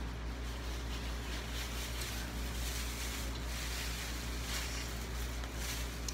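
Steady low hum in the background, with soft rustling as craft supplies are handled and taken out of their packaging.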